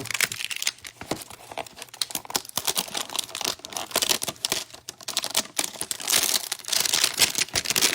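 Trading-card pack wrapper crinkling and tearing as it is handled and ripped open, a dense run of small irregular crackles that grows busier in the second half.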